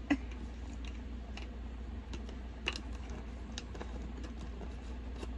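Light, irregular clicks and taps of small makeup items and containers being handled, over a steady low hum.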